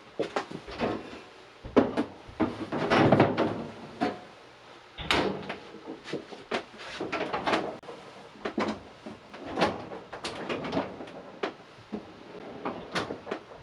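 Handling noises: an irregular run of knocks, clunks and rustles as objects are moved about and set down, loudest about two to three seconds in, with a sharp knock about five seconds in.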